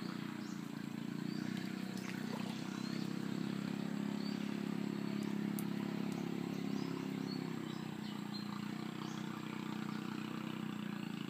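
A small engine running steadily, a low even hum with no change in pitch, with a few faint high chirps over it.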